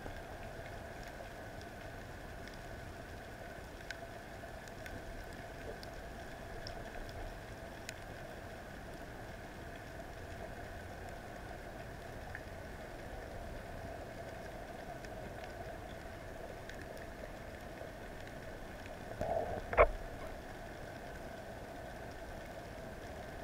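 Underwater ambience recorded by a diver's camera: a steady hum with faint, scattered clicks, and one sharp knock near the end.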